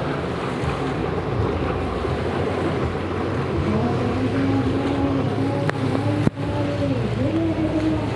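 Racing jet ski engines running hard across the water, their pitch rising and falling as the riders throttle on and off, over the rush of spray and wind on the microphone. The sound breaks off briefly about six seconds in.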